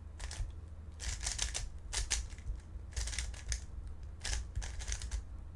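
3x3 Rubik's cube being turned by hand: bursts of quick plastic clicks as the layers snap round, coming in short flurries about once a second.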